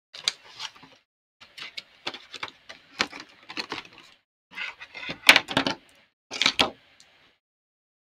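Hands rummaging through alcohol markers: plastic marker barrels clacking and rattling together in irregular bursts, with a plastic sleeve rustling. The loudest clatter comes a little past halfway.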